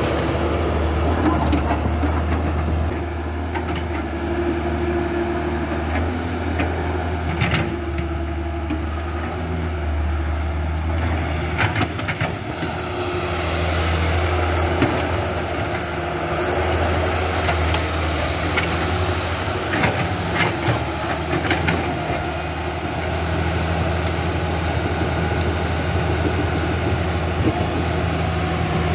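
Radio-controlled toy excavator running: a steady low motor hum with shifting mechanical whirring as it swings and works its arm, and a few sharp clicks.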